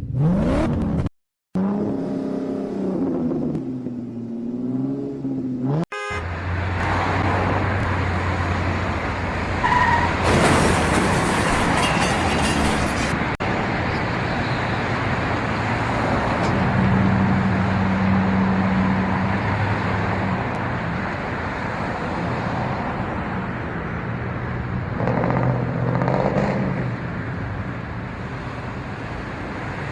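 Cars in traffic: engines running with car horns honking at times, broken by two abrupt cuts in the first six seconds.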